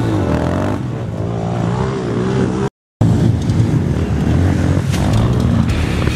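Motocross dirt bike engines revving up and down, the pitch rising and falling as the throttle opens and closes. The sound cuts out completely for a moment about halfway through, then engine noise resumes.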